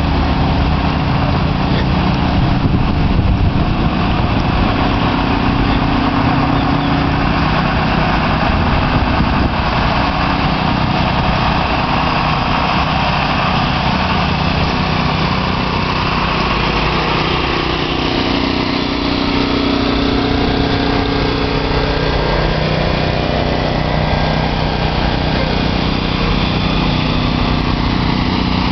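Medium-duty flatbed tow trucks' engines running as the trucks move slowly past at close range, a steady drone that drifts up and down in pitch.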